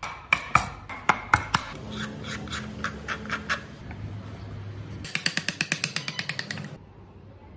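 Woodworking hand tools knocking and tapping sharply on wood, then a quick even run of about a dozen clicks near the end.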